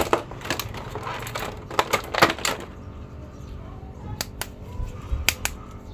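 Hard plastic action figures and a clear plastic blister tray being handled, giving scattered clicks and crinkles. They come thickest in the first couple of seconds, then again a little past the middle.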